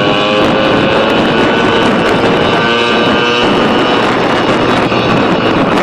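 Pit bike's small engine running steadily, with wind rushing over the microphone.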